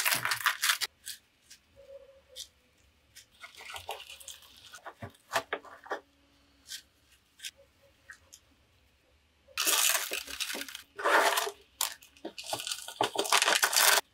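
Hands at work potting succulents: scattered light taps and clicks with small rustles, then three loud, scratchy rustling stretches in the last few seconds.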